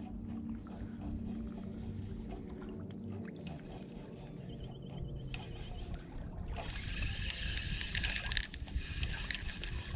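Gentle water trickling and lapping at a pebbly lakeshore, with a low hum in the first few seconds. From about six and a half seconds in, a louder scratchy rattle close to the microphone.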